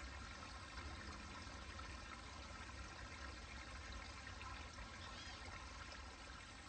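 Faint, steady trickle of a small stream spilling over rocks in a little waterfall.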